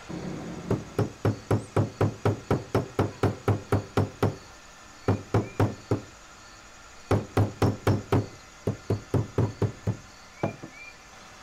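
Small hammer tapping silver wire flat against a block, in quick runs of about three to four blows a second with short pauses between runs, ending in a few single taps.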